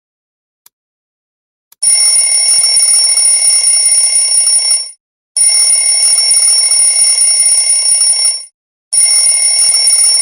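Countdown timer ticking faintly once a second, then about two seconds in a loud alarm-clock ring goes off in bursts of about three seconds with short breaks, signalling that the countdown has run out.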